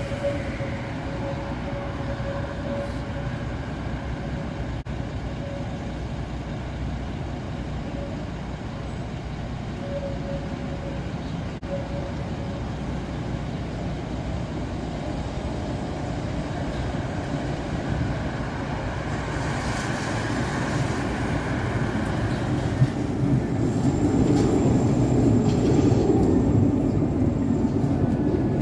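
Tram running along its track: a steady low rumble with a faint on-and-off tone in the first dozen seconds, a single sharp knock about 23 seconds in, and the rumble growing louder over the last few seconds.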